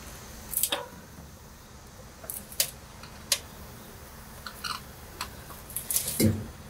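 Floor jack being pumped and a rear differential shifting on it: irregular metallic clicks and clacks, with a heavier clunk about six seconds in.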